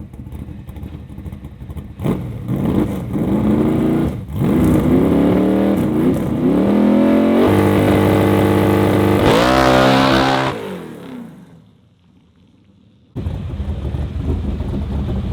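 Drag car's engine revving hard on a launch: the revs climb in steps, hang at one steady pitch for a couple of seconds, rise once more, then fall away as the engine is lifted off about ten seconds in and the run is aborted. The hanging revs go with a clutch the driver says would not release properly when dumped. A steady rumble comes back suddenly near the end.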